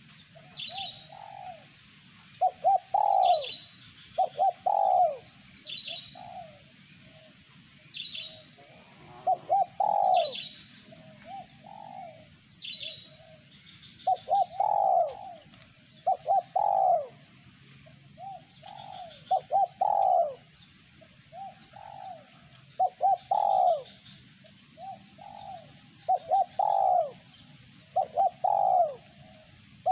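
A decoy dove cooing in repeated phrases of two to four low notes every two to three seconds, calling to lure wild doves. In the first half a fainter, higher chirp from another bird comes every couple of seconds.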